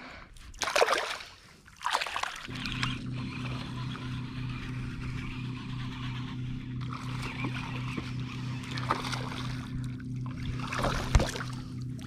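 A couple of short water splashes, then a steady low motor hum on the boat starts about two and a half seconds in and holds, under light water noise.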